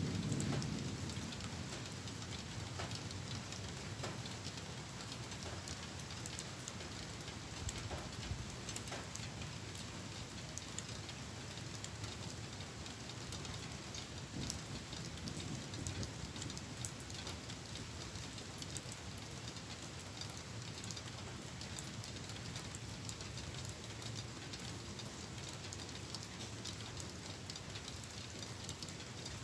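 Rain falling steadily in a thunderstorm: an even hiss with many small drop ticks. A low rumble of distant thunder swells right at the start.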